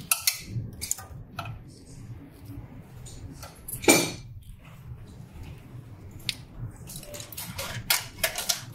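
Handling of an Epson i3200 printhead and its flat ribbon cable: scattered light plastic clicks and rustles as the cable is fitted into the head's connector, with one louder sharp knock about four seconds in and a cluster of clicks near the end.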